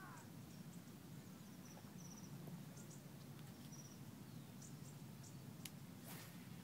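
Faint lakeside ambience: a steady low hum with scattered short, high bird chirps. Near the end comes a sharp click, then a brief whoosh as a fishing rod is swung through a cast.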